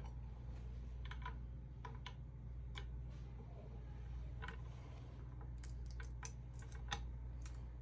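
Small magnets and metal parts clicking as they are handled: irregular light clicks and taps, with a quick run of several clicks a little past the middle, over a steady low hum.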